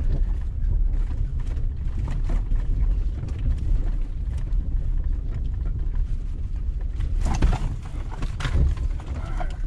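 Inside the cab of a 2020 Ford F-150 in four-wheel-drive high, crawling up a rocky dirt track: a steady low rumble of the truck and its tyres on rock, with scattered knocks and rattles as it jolts over stones, heaviest about seven to eight and a half seconds in.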